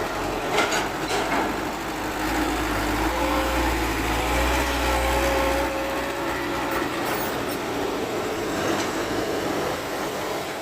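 Excavator at work: diesel engine rumble that swells for a few seconds mid-way, with a steady hydraulic whine over it and a few sharp knocks near the start.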